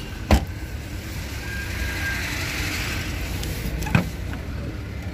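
Car noise at an outdoor car lot: a low steady rumble, with a wash of noise that swells and fades in the middle as a vehicle goes by. There is a sharp knock just after the start and a click about four seconds in, as a hand takes hold of a car's rear door handle.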